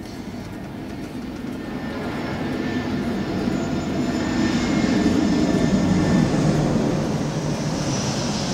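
Rumbling noise of a passing engine, swelling to its loudest about five seconds in and then easing off.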